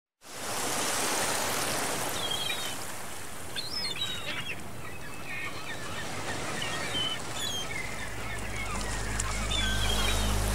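Birds chirping and calling in short bursts over a steady hiss of outdoor ambience; low sustained music notes swell in near the end.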